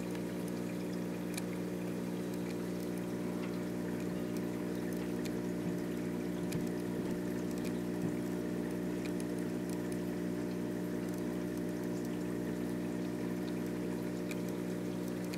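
Aquarium pump humming steadily, with water trickling and bubbling and scattered faint clicks.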